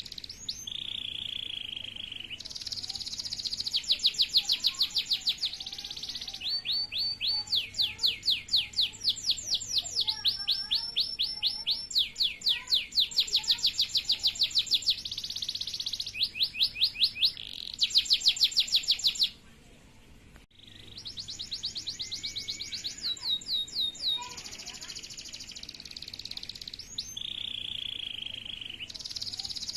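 Male canary singing: long rapid trills of repeated high notes that switch to a new note type every second or two, with a brief pause about two-thirds through.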